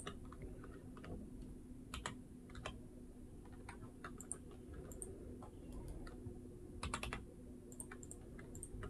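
Faint computer keyboard keystrokes and mouse clicks, scattered, with a quick cluster of clicks about seven seconds in, over a faint low steady hum.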